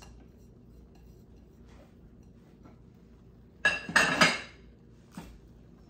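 Kitchen dishes clinking: a quick cluster of several sharp, ringing clinks of glass and ceramic being set down about four seconds in, then one light click near the end.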